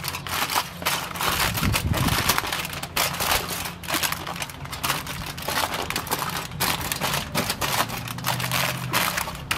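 Heavy-duty aluminium foil crinkling as it is folded and pressed by hand into a bowl, an irregular run of crackles that keeps going.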